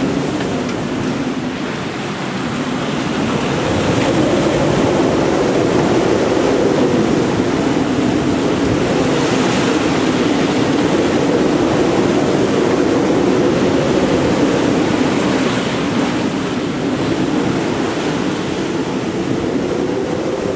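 Steady rush of wind and open sea around a sailing yacht under way, with wind buffeting the microphone.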